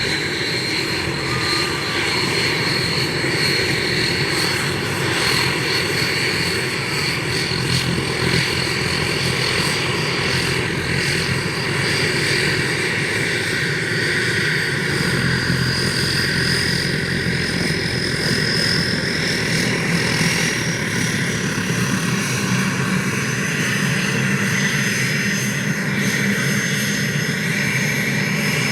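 Aérospatiale SA-330L Puma helicopter starting up: its twin Turbomeca Turmo turboshaft engines run with a steady turbine whine that rises slowly in pitch as they spool up.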